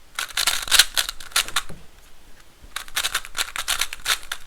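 GAN i Carry smart Rubik's cube being turned fast through an algorithm: rapid runs of clicks and clacks from the turning layers, in two bursts of about a second and a half with a short pause between.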